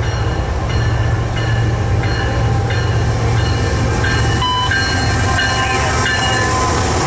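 Lead diesel-electric locomotives of an empty coal train, a Citirail GE ES44AC followed by a CSX unit, passing close by with a steady, loud low engine drone. High steady ringing tones come and go over it throughout.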